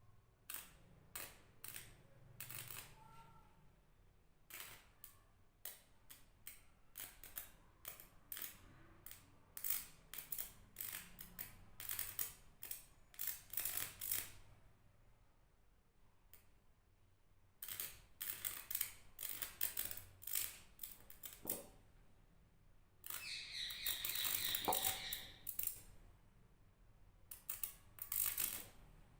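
Irregular sharp clicks and crackles, some spaced apart and some in quick clusters, with a denser, hissing crackle a little over three-quarters of the way through.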